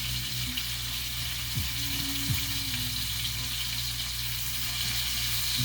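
Monkfish pieces sizzling steadily as they fry in a pan, browning on the underside.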